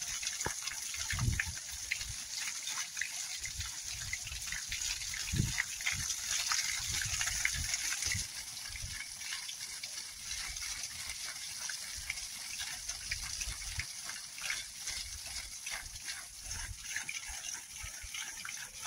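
A jet of borewell water from a hose gushing and spraying over a crop, a steady hiss that drops somewhat after about eight seconds. Scattered low thumps run through it.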